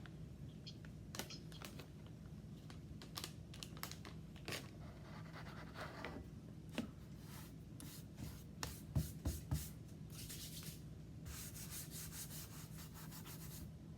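Cocoa powder being scooped and shaken into a measuring cup: light scraping and rustling with small taps, and a few dull knocks about nine seconds in. A steady low hum runs underneath.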